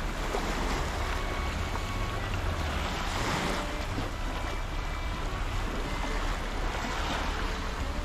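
Sea waves washing onto the shore in a continuous hiss that swells about three seconds in, with wind rumbling on the microphone.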